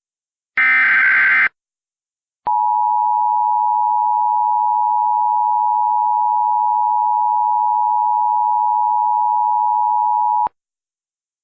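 The last burst of Emergency Alert System SAME header data, a buzzing run of digital tones lasting about a second. After a short gap the EAS attention signal follows: a steady two-tone 853/960 Hz sound held for about eight seconds that then cuts off sharply. It warns that an emergency alert message is about to be read.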